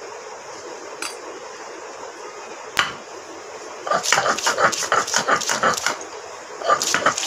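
Masala being ground by hand on a sil-batta, a stone roller rubbed over a flat grinding stone. A sharp knock comes near three seconds in, then rapid rasping, grating strokes start about four seconds in and go on to the end.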